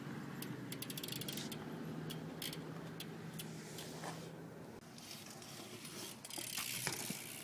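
Ratchet clicking of a BMX rear hub, in uneven bursts of ticks with some rattling between them.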